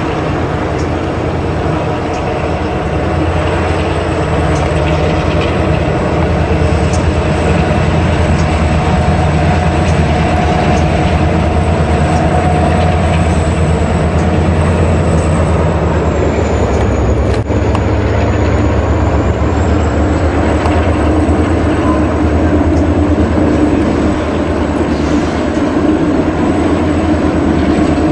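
Toy steam-style locomotive running on its toy track: a steady whir of its small motor and gears.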